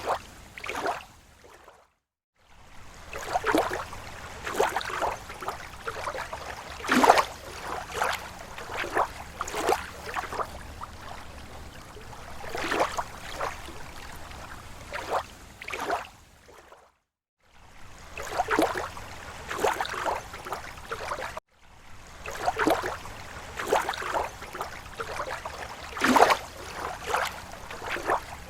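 Small waves lapping against a lake shore: quick irregular runs of splashes and gurgles. The sound cuts out briefly about two seconds in, again around seventeen seconds, and once more shortly after.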